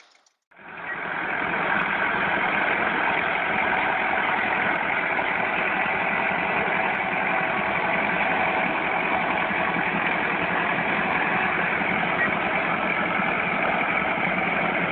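Tractor engine running steadily under load while hauling two trailers stacked with logs up a slope. It starts abruptly about half a second in and holds an even level throughout.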